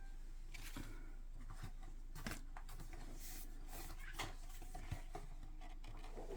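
Trading cards being handled and flipped through: a scatter of soft taps and rustles, several in a few seconds, over a low steady hum.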